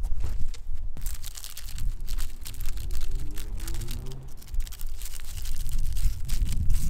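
Crackling, crunching clicks, as of grit and gravel shifting close to the microphone, over a low rumble of wind on the microphone. About two and a half seconds in, a faint low hum rises slowly in pitch for under two seconds.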